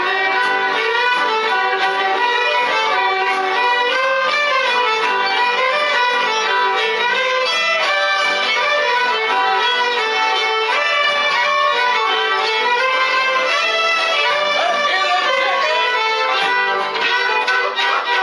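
A group of fiddles playing a bluegrass tune together, bowed steadily with the melody moving up and down.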